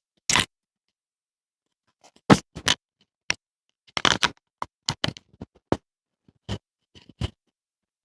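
Handling noise on a clip-on wireless microphone as it is tucked inside a shirt: cloth rubbing and scraping directly over the mic in a string of short, irregular scratches and rustles.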